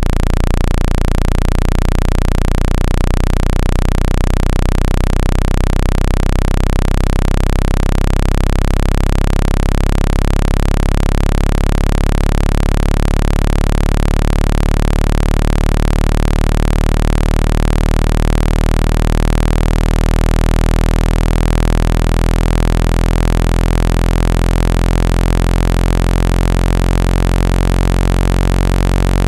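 Speaker-cleaning tone: a loud, steady, low-pitched electronic buzz with many overtones over a constant hiss, fluttering quickly in the first few seconds. It is meant to vibrate water and dust out of a phone speaker.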